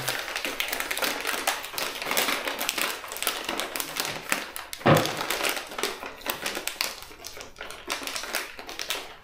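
Crinkly plastic biscuit wrappers being handled and torn open, a dense run of irregular crackles and small clicks. About five seconds in there is a single thump.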